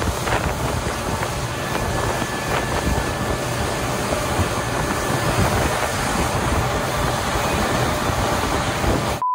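Suzuki 140 outboard driving a 25-foot panga at speed, with water rushing and spraying along the hull and wind buffeting the microphone, a steady, unbroken rush of noise.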